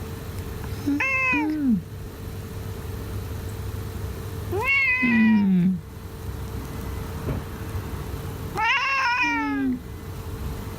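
Domestic cat meowing three times in an odd, drawn-out voice, each call about a second long. The pitch rises and then falls, and the last call wavers.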